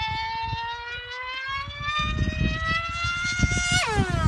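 Radio-controlled pylon racing plane's high-revving model engine running at full throttle: a high whine that rises slowly in pitch, then falls sharply near the end as the plane passes close by. Wind buffets the microphone throughout.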